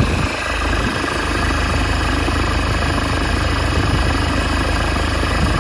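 Nissan Navara pickup engine idling steadily, with a low even rumble. The new alternator is running without the rattle of the old worn pulley bearing.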